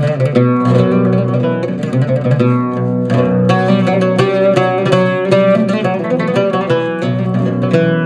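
Turkish oud with a maple and mahogany body played solo: a quick, unbroken melodic run of plucked notes, each ringing briefly before the next.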